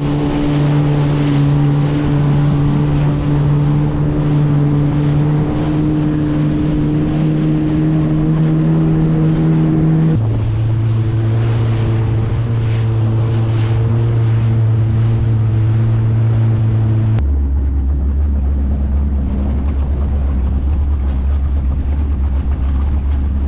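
Jet ski engine running steadily under way, with wind and water rushing past. The engine note holds a constant pitch, then drops abruptly to a lower, steady note twice, about 10 and 17 seconds in.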